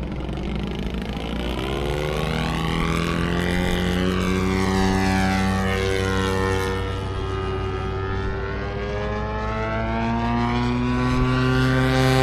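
Radio-controlled model airplane's engine and propeller running in flight, its pitch rising and falling as the plane maneuvers and passes, growing louder near the end.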